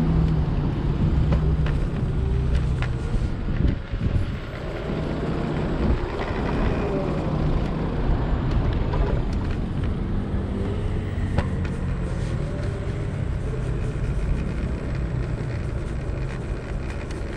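Street ride on a Segway Ninebot ES4 electric scooter with solid tyres: a steady rumble over the pavement with scattered clicks and rattles, amid road traffic with a few tones rising and falling past.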